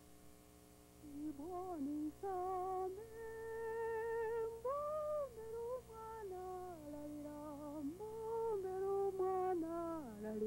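A woman humming a slow, wordless tune of held notes that glide from one to the next, starting about a second in.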